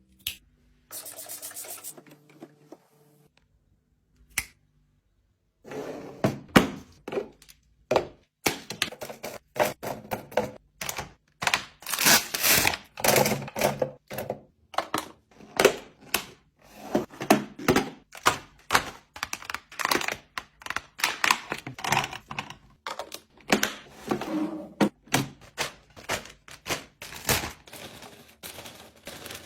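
Bottles and containers being set down and arranged on refrigerator shelves: a dense run of knocks, clicks and clatters, which starts after a short quiet gap about five seconds in.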